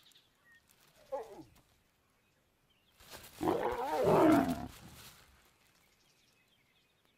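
Lions snarling in a brief scuffle as a male approaches a lioness: a short falling growl about a second in, then a loud, wavering snarl lasting about two seconds.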